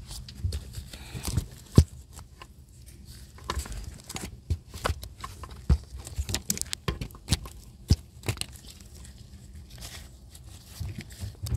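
Scattered clicks and light knocks of hand tools and metal parts being handled while a 14 mm bolt is fitted for the fuel injector, over a low steady hum.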